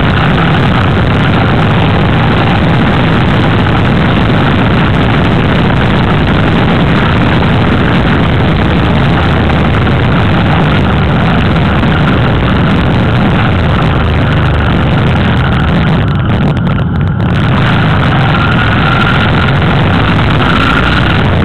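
Motorcycle riding at road speed, heard from the moving bike: a steady engine drone buried in loud, constant wind noise on the microphone, dipping briefly for about a second some three-quarters of the way through.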